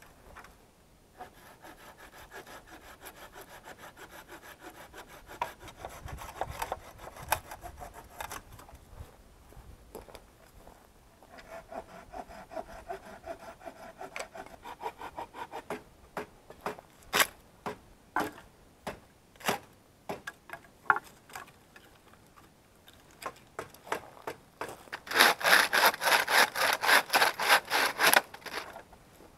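Hand saw cutting firewood in several bouts of back-and-forth strokes, with pauses and a few slower single strokes between them; the last bout, near the end, is the loudest.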